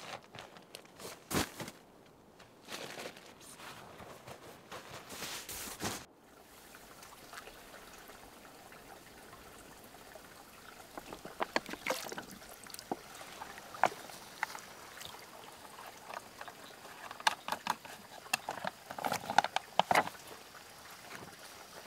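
Rustling and a few soft knocks as gear is handled at a tent. Then water splashing, trickling and dripping as hands dip and fill a bag in a shallow pond, in a run of small splashes.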